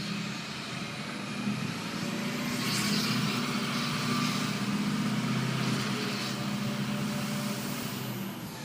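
Ford 6.0 Power Stroke diesel in an F-250, muffler and cat deleted, pulling with its turbocharger whistling. The whistle climbs to a very high pitch over about three seconds, holds while the engine note swells, then falls away near the end.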